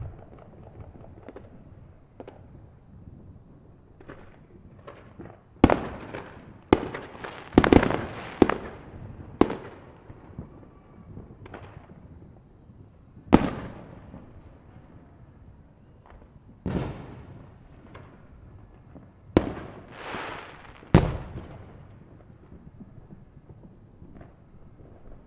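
Fireworks going off: irregular sharp bangs, a quick cluster of four or five about six to nine seconds in, then single bangs a few seconds apart, each trailing off in an echo.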